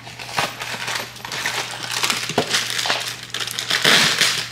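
Cardboard cake-mix box being opened and its plastic inner bag of dry mix crinkling and rustling as it is pulled out, in irregular crackly bursts that are loudest near the end.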